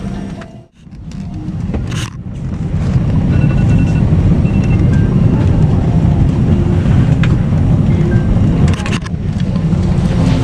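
Steady, loud low engine rumble with background music over it. The sound drops away sharply for a moment under a second in, then returns.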